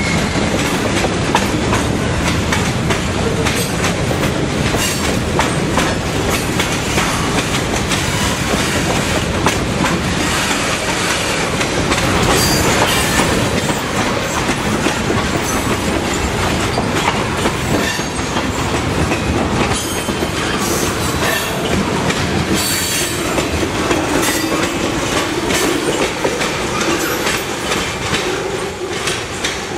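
Tank cars of a slow-moving freight train rolling past close by, their steel wheels clacking over the rail joints, with a brief high squeal of wheel on rail about twelve seconds in.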